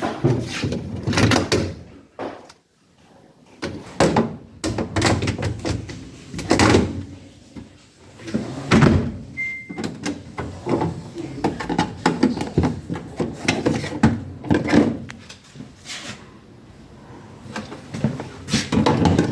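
Samsung DV5000T heat pump tumble dryer being handled: a run of irregular knocks and clunks from its door and body, with one short electronic beep about nine and a half seconds in.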